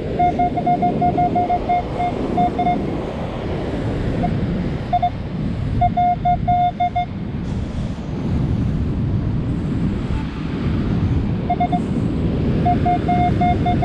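Metal detector beeping over a coin target, short same-pitched beeps at about four a second in three runs, as the coil passes back and forth over it. Surf and wind rush under it.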